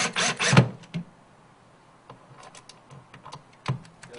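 Cordless drill driving screws into a metal drawer slide's mounting strap: a quick run of rattling clicks in the first second or so, then only faint scattered ticks.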